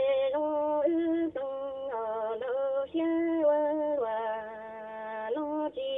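A high singing voice holding long notes with a slight waver, stepping up and down between pitches, with short breaks between phrases.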